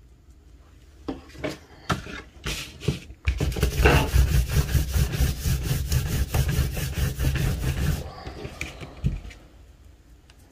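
Palms rubbing back and forth on a sheet of paper on a tabletop in quick, even strokes, loud for about four seconds from around three seconds in, while two-part epoxy putty is worked. A few light taps come before it.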